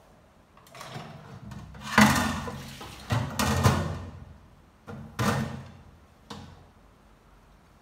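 A series of loud knocks and clatters as kitchenware is handled on a counter: about five sudden impacts, the loudest about two and three and a half seconds in.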